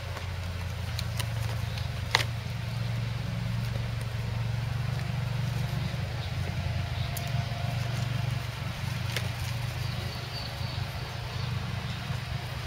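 Puppies knocking and dragging a plastic tub about on grass: scattered light clicks, with one sharp clatter about two seconds in. A steady low rumble runs underneath.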